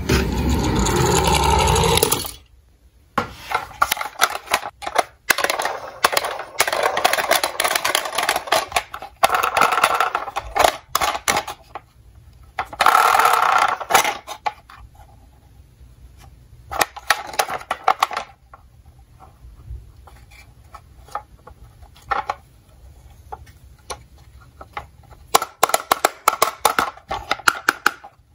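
Toy ambulances rolling and being handled: a loud rolling scrape for about the first two seconds, then irregular bursts of clattering, rattling and scraping of toy cars and their wheels.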